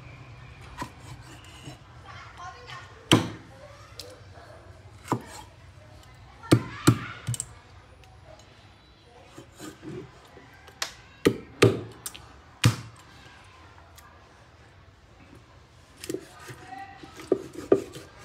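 Meat cleaver chopping through raw pork ribs onto a round wooden chopping block: sharp chops, some single and some in quick runs of two or three, with pauses between.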